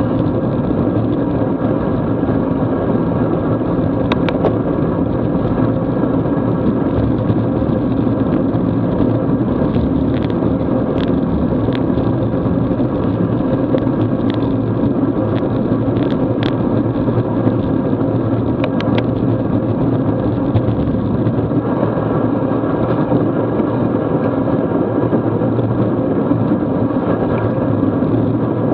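Steady rush of wind and road noise from a bicycle riding at about 20 mph on wet asphalt: air buffeting the camera's microphone and tyres hissing on the wet road. A few faint clicks are scattered through.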